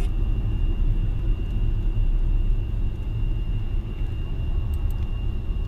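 Road and engine noise heard inside a moving car's cabin: a steady low rumble, with a faint steady high tone above it.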